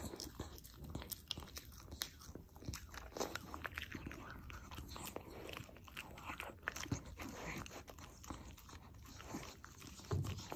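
Shiba Inu chewing small pieces of bread, a run of irregular crunchy clicks from its jaws and teeth.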